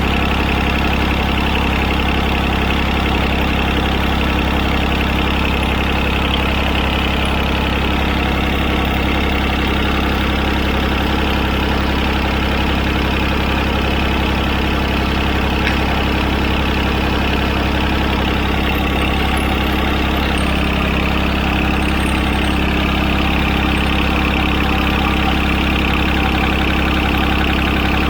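John Deere tractor's three-cylinder Yanmar diesel engine idling steadily.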